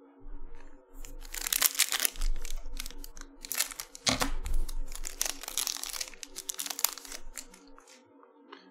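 Foil wrapper of a Bowman Chrome trading-card pack crinkling in irregular bursts as it is cut open with scissors and the cards are handled.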